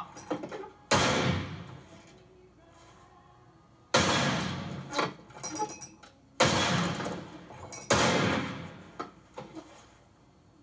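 Four revolver shots in a room, each a sudden bang with a fading echo. The first comes about a second in, the next three seconds later, then two more a second and a half apart.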